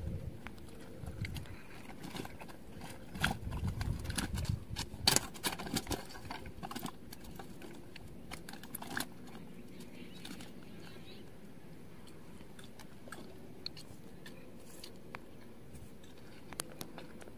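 Close handling noises of a small hooked fish being taken off the line by hand: scattered sharp clicks and short rustles, busiest in the first half, then only a few faint clicks.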